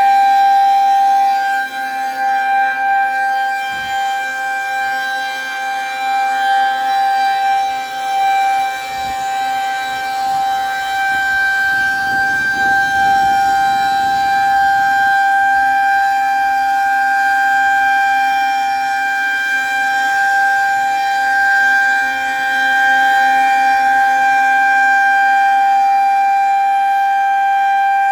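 Federal Signal 2001-130 rotating outdoor warning siren sounding a steady single-tone alert. The tone holds one pitch while its loudness swells and fades as the siren head turns.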